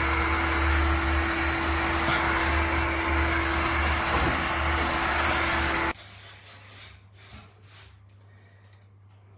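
Shark HydroVac MessMaster wet-dry vacuum running with a steady rushing whir and hum, cutting off abruptly about six seconds in and leaving only faint low sound.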